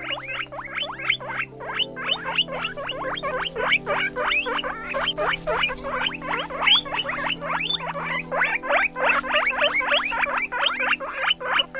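Guinea pig squeaking in a rapid, continuous series of short rising squeaks, several a second, with low steady background music beneath.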